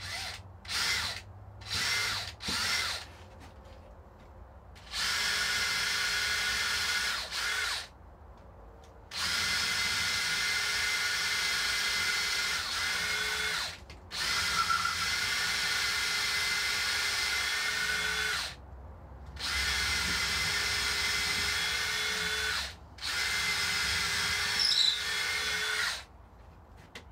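Cordless drill driving a long, thin bit into a guitar body to bore the wire channel: a few short trigger blips, then five runs of a few seconds each with brief stops between, the motor holding a steady whine.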